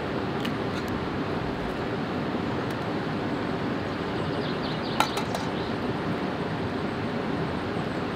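Steady rushing noise of a nearby waterfall. About five seconds in there is one sharp tap of an egg being cracked, with a fainter tap about half a second in.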